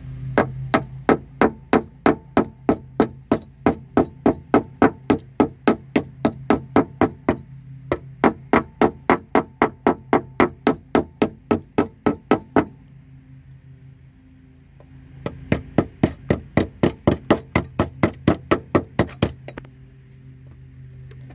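Small wedge-headed hammer tapping quickly on the rust-bubbled sheet steel of a 2014 Chrysler Town and Country's rear wheel arch, about three blows a second. The blows come in three runs, with short pauses about seven and twelve seconds in. Each run knocks out more of the rotted metal and opens up the rust hole.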